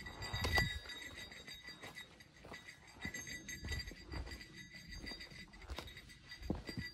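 Footsteps crunching on a dirt trail strewn with leaf litter, with a small bell carried by the walker jingling along with each step.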